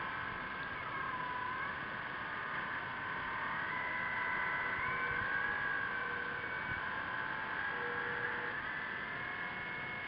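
Radio-controlled model submarines' electric motors whining, heard underwater: several high steady tones that shift in pitch now and then as the motors change speed, over a hiss.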